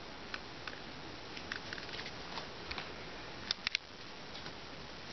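Steady hiss with scattered light clicks and taps from handling, including a quick cluster of three sharper clicks about three and a half seconds in.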